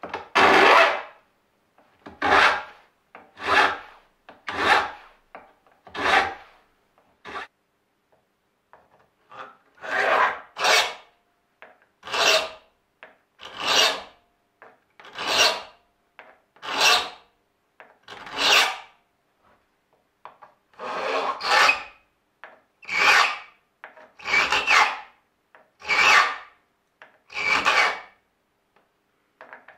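Hand file rasping on the steel teeth of a handsaw, in about eighteen separate strokes, roughly one every second and a half, with two short pauses. This is sharpening the saw by hand.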